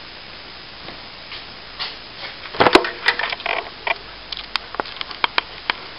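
Broken plasterboard debris being handled: a burst of crunching and crackling about halfway through, then a run of sharp clicks and snaps as small pieces knock together and fall.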